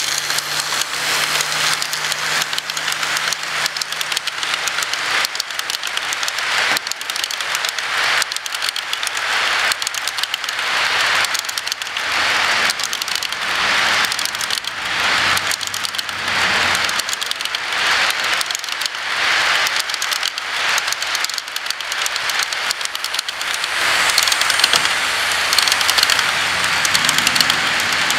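HO scale model freight train rolling past on plastic-roadbed sectional track: a steady rattling clatter of the cars' wheels on the rails, swelling and fading about once a second. A low hum from the locomotive motors fades out in the first couple of seconds, and the clatter grows louder near the end.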